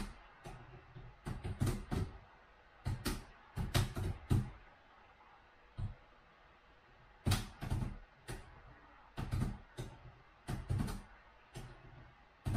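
Laptop keyboard being typed on hard: irregular bursts of key clicks, each with a dull thud, broken by short pauses and one longer pause of about two seconds midway.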